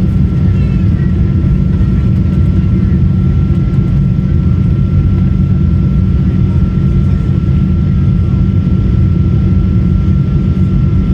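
Steady jet engine and airflow noise heard inside the cabin of a British Airways Boeing 777-200: a deep, even rumble with a thin steady whine above it.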